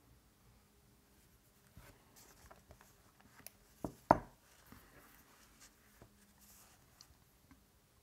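An open notebook and a fineliner pen being handled on a table: soft rustles and scratches, with two sharp knocks about a quarter second apart near the middle.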